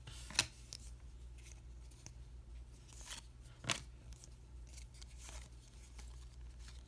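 Baseball trading cards being handled and slid through the fingers, with faint rustles and two sharp clicks, one right at the start and another a few seconds later, over a low steady hum.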